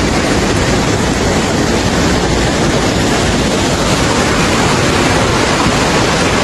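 Muddy flash-flood water rushing down a road as a torrent, a loud steady rush of water with no break.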